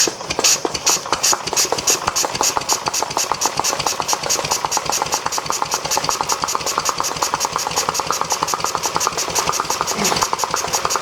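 Single-cylinder Briggs & Stratton Model Y hopper-cooled engine catching and running on its own, without choke. It gives a steady string of evenly spaced exhaust pops, about seven a second.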